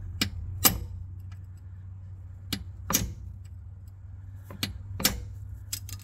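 Hammer blows on a long steel punch set against the metal shell of the old rear main seal of a 1996 Jeep Cherokee engine, driving the upper seal half around the crankshaft to work it out. About eight sharp metallic hits, mostly in pairs.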